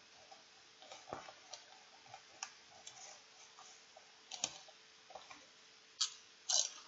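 Crisp potato chips crunching while being chewed: scattered, irregular crackly snaps, with two louder crunches near the end as a fresh chip is bitten.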